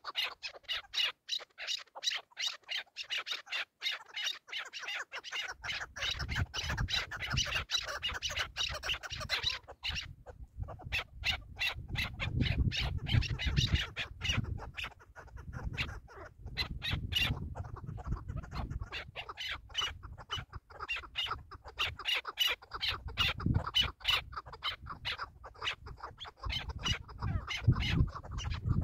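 Chukar partridges calling: a fast run of short, repeated chucking notes, several a second, with a brief pause about ten seconds in. A low rumble sits underneath from about five seconds in.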